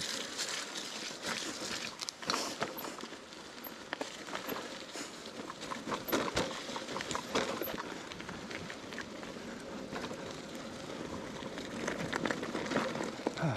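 Mountain bike rolling down a stony dirt trail: tyres crunching over gravel and the bike rattling, with irregular sharp knocks as it hits stones.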